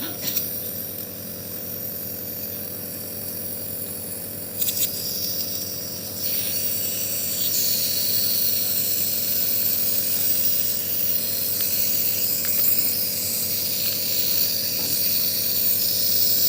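Compressor nebulizer running steadily: a motor hum with the hiss of the medicine mist, growing louder about six seconds in.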